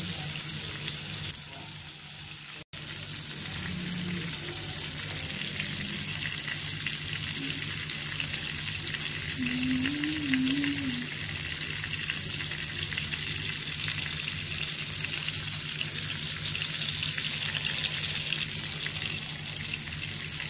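Indian mackerel (bangda) pieces shallow-frying in oil in a non-stick pan: a steady sizzle, with a low hum underneath. The sound drops out for an instant a little under three seconds in.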